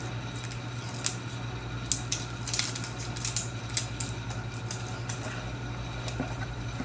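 A few sharp little plastic clicks and taps as a cosmetic eyeliner is handled and opened, over a steady low hum.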